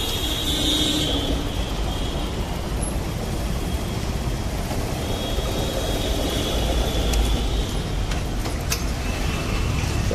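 Motorcycle riding through city traffic: a steady low rumble of engine, road and wind noise, with cars running alongside.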